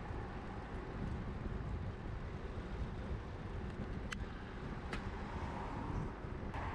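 Wind buffeting the microphone and tyre rumble from a bicycle riding along a street, a gusty low noise throughout. Two short sharp clicks come about a second apart midway.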